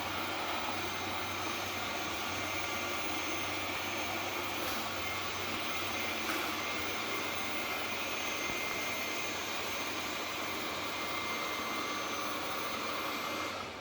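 ROIDMI EVA robot vacuum-mop running with a steady whirring hiss and a faint high whine, dropping off near the end.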